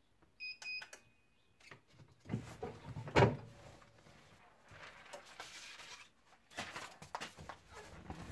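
A heat press timer beeps twice briefly and then once longer, marking the end of the pressing time. About three seconds in the press is opened with a loud clunk, followed by rustling and crackling of paper and umbrella canopy fabric as the transfer sheet comes off.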